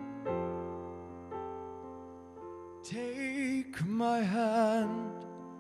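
Slow piano ballad: soft piano chords struck about once a second, then a singing voice comes in about halfway through and holds two long notes with vibrato.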